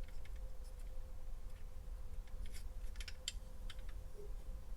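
Faint metal clicks and scrapes of a Colt M1903 Pocket Hammerless pistol's slide being worked onto the frame rails over the recoil spring, most of them a little past the middle, over a steady low hum.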